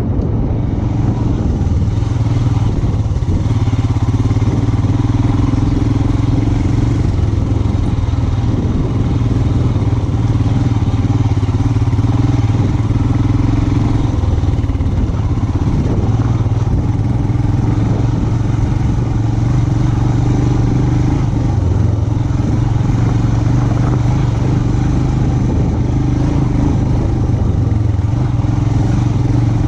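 Motorcycle engine running under way at fairly steady revs, a constant low engine note that holds throughout.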